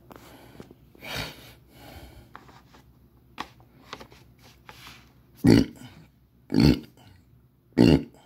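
A man burping three times, loud and short, about a second apart in the second half, after some quieter rustling.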